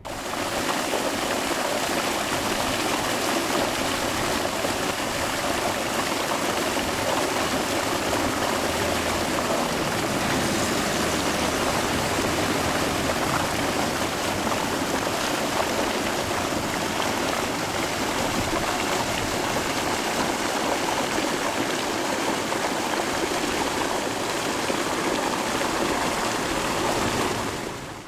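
Water gushing from a pump's discharge pipe into a concrete channel: a steady rushing and splashing that fades out right at the end.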